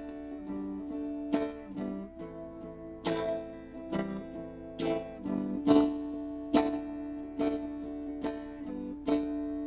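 Electric guitar playing a slow instrumental passage: chords struck a little more often than once a second and left to ring, with no singing.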